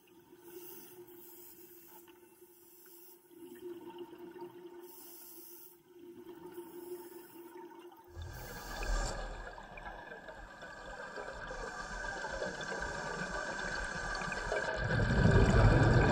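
Underwater: a faint steady hum, then about halfway a diver's exhaled air bubbles from a full-face mask regulator start as a rushing bubbling that swells to its loudest near the end.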